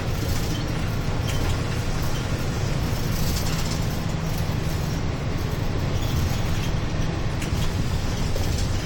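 Steady drone of a route bus's engine and road noise heard from inside the cabin as it drives along at an even pace.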